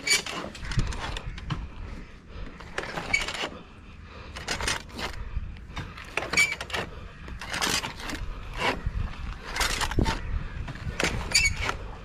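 Rope climbing rig scraping and rubbing against a coconut palm trunk in repeated strokes, about one every one to two seconds, as the climber moves up the tree.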